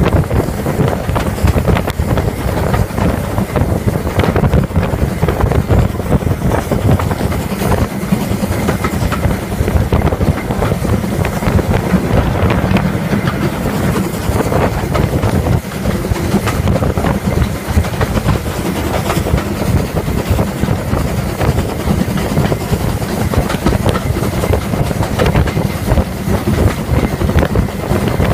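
Steam-hauled train running, heard from just behind the tender of Ivatt Class 4MT 2-6-0 locomotive No. 43106: a steady low rumble of wheels on the rails and the working engine, with wind buffeting the microphone held out of the coach window.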